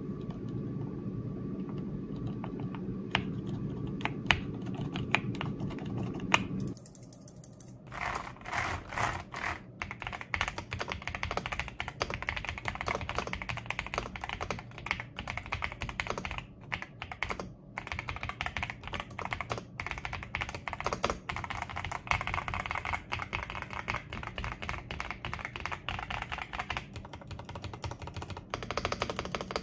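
Typing on the Attack Shark X98 full-size mechanical keyboard, with pre-lubed Blueberry linear switches and PBT keycaps: a few scattered key clicks over a low hum at first, then from about seven seconds in a continuous fast run of keystrokes. The typing is fairly loud, and the long keys, the spacebar above all, stand out.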